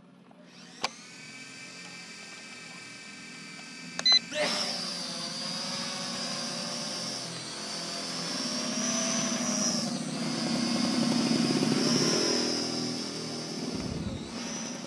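ZD6 toy quadcopter drone: its motors start spinning with a thin high whine, a click near four seconds, then the propellers rise to a loud buzzing whine as it lifts off and climbs, the pitch wavering up and down as it is flown.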